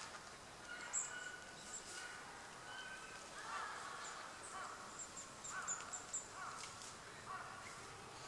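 Wild birds calling: scattered short, very high, thin notes, joined from about three and a half seconds in by a few harsher, lower caw-like calls.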